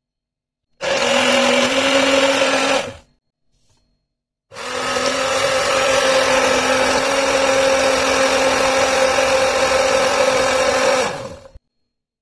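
Immersion stick blender pureeing vegetables in a plastic beaker, its motor running with a steady hum. It runs in two goes: a short burst of about two seconds, a pause, then a longer run of about seven seconds that winds down and stops near the end.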